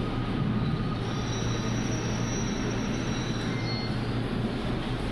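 Light-rail train running through the station: a steady low rumble with a faint high-pitched whine over it.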